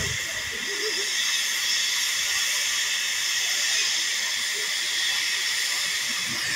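Steam tank locomotive 16440 blowing off steam from its safety valves: a steady, unbroken hiss. The boiler is at full pressure while the engine stands.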